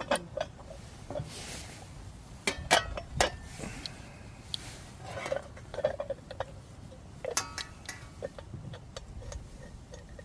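Scattered clinks and knocks of camp gear being handled, the loudest a few seconds in, one about halfway through ringing briefly like struck metal.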